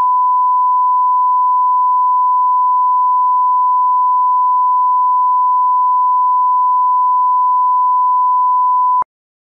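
1 kHz line-up reference tone played with SMPTE colour bars at the head of a broadcast tape: one steady, unwavering pitch that cuts off suddenly about nine seconds in.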